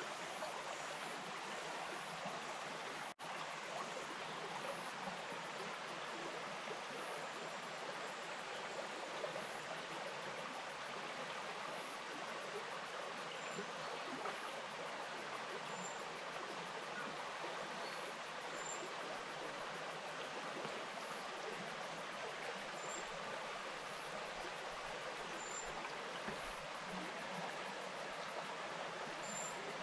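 Bush stream flowing steadily, a continuous rush and burble of water, with a momentary dropout about three seconds in.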